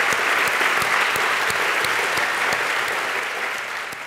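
Audience applauding, a dense even clatter of many hands clapping that starts to fade near the end.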